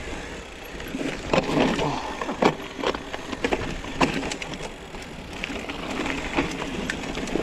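Mountain bike rolling downhill over a grassy, stony trail: tyres running over grass and loose stones, with the bike rattling and knocking sharply over the rough ground and a low rumble underneath.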